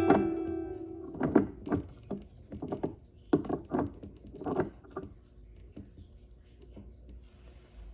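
A guitar note fades out, then a dozen or so light, irregular taps and rustles, like small objects being handled and set down.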